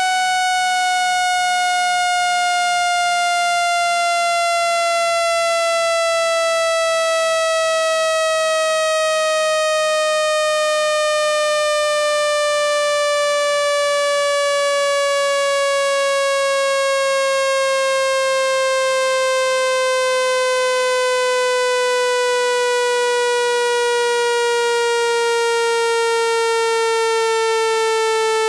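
Electronic speaker-cleaning tone, played to shake water out of a phone's speaker: a buzzy tone rich in overtones, gliding slowly and evenly down in pitch.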